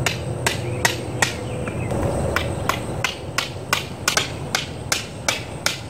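A steady run of sharp clicks, about three a second, over quiet room tone.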